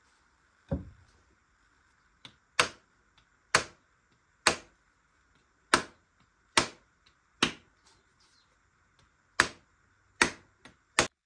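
Sharp wooden knocks of a hammer striking the end of a new wooden hammer handle, about a dozen blows at roughly one a second, seating the hammer head onto the handle. The first blow, a second in, is deeper than the rest.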